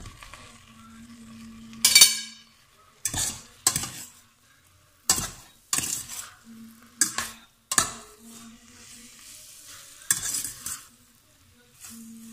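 Cooked linguine being tossed in hot oil in a stainless steel pot: a utensil scrapes and knocks against the pot in about eight irregular strokes, the loudest about two seconds in, over a light sizzle.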